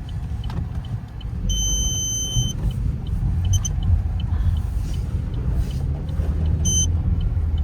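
Car running with a steady low rumble, stuck in thick snow, with a light regular ticking about three times a second. A high electronic beep sounds for about a second near the start and briefly again near the end.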